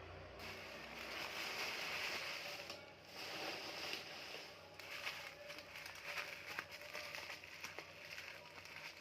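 Plastic and paper parcel packaging rustling and crinkling as it is handled, in two longer swells and then many small crackles.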